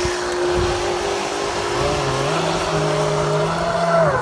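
Small remote-control boat's motor running with a steady tone as it tows a fishing net's line out across the water, over a wash of churned water.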